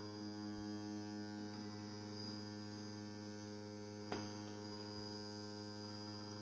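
Steady electrical hum with many even overtones from the DIY three-phase generator spot-welding rig, with one sharp snap about four seconds in.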